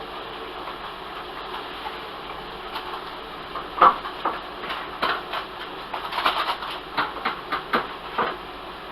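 Food frying in a pan on the stove: a steady sizzle. About four seconds in comes a run of about a dozen sharp clicks and knocks lasting some four seconds, the first of them the loudest.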